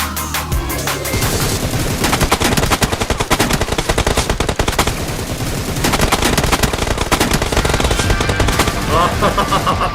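Rapid automatic gunfire, in long fast bursts starting about a second in, with music underneath.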